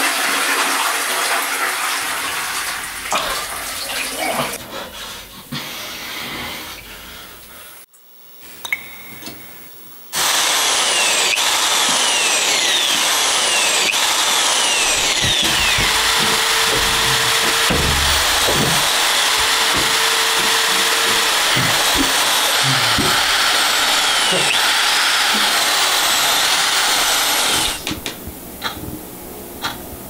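A toilet flush rushing and draining, fading away over several seconds. After a short pause, a loud steady rushing noise with repeated falling whistle-like sweeps runs for about seventeen seconds and then cuts off suddenly.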